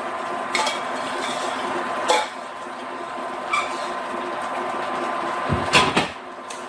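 A metal spoon clinking against a stainless steel saucepan a few times as cooked asparagus pieces are scooped out, with the loudest knocks about six seconds in, over a steady low hum.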